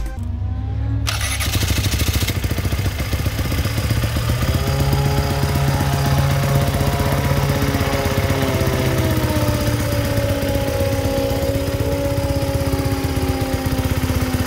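Aero 1000 single-cylinder, four-stroke, water-cooled, fuel-injected ultralight engine running steadily with its propeller turning, a dense run of firing pulses. The engine speed picks up a little about five seconds in and eases off slightly later on.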